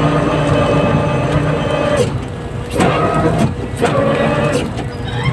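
Boat engine running steadily aboard a fishing vessel, with several sharp knocks and clatter now and then.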